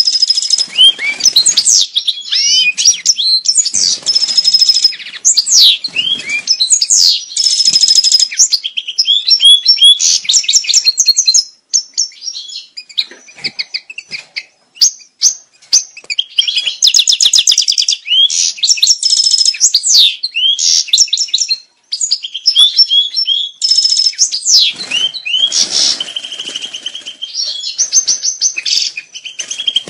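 European goldfinch song used as a breeding-stimulation call: a fast, tinkling run of twitters, trills, gliding whistles and buzzy notes, almost unbroken, with a short lull about halfway through.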